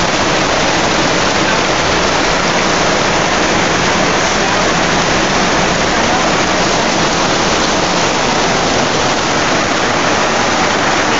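Heavy rain pouring down in a steady, loud hiss: a torrential downpour.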